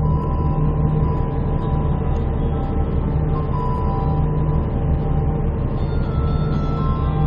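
Diesel railcar engine idling steadily, heard from inside the stationary car as a low pulsing rumble. A slow run of high held notes sounds over it, changing pitch every second or so.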